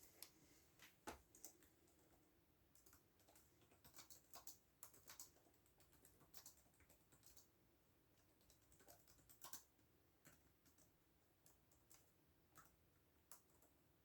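Faint typing on a computer keyboard: irregular keystrokes in short runs, with one heavier key thump about a second in.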